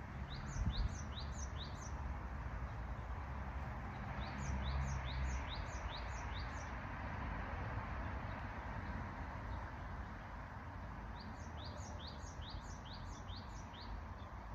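A small songbird singing three phrases of quick, repeated falling chirps, about five or six notes each, near the start, around the middle and near the end, over a steady rush of wind.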